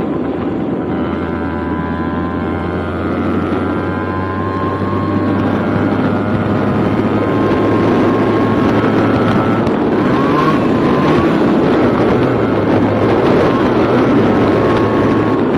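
Yamaha RX100's two-stroke single-cylinder engine running as the motorcycle is ridden, with wind on the microphone; it grows a little louder about eight seconds in.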